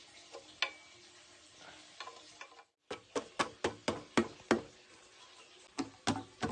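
Series of sharp taps and knocks from scooter parts being handled and fitted by hand during assembly, coming about three a second in the second half after a short break.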